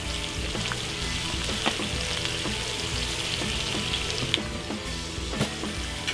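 Onions and sauerkraut sizzling steadily on a hot round flat-top griddle, with a few faint clicks.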